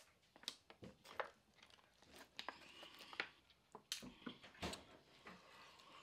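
Faint mouth sounds of a person eating and drinking: irregular lip smacks, clicks and chewing.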